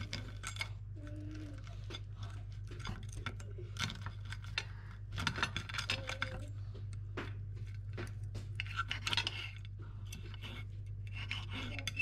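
Metal fork and knife cutting fried chicken on a ceramic plate: irregular scrapes and clinks of metal against the plate, over a steady low hum.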